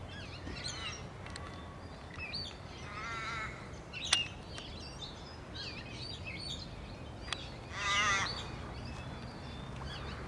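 Garden birds chirping and calling throughout, with two longer, harsher calls about three and eight seconds in, over a steady low rumble. A single sharp click about four seconds in is the loudest sound.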